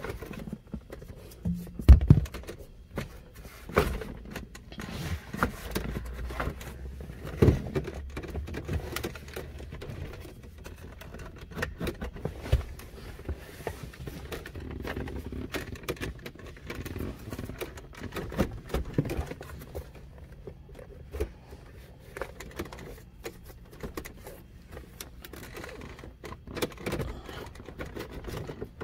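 Scattered clicks, taps and knocks of hands and tools working on a car's interior plastic trim, with a sharper knock about two seconds in.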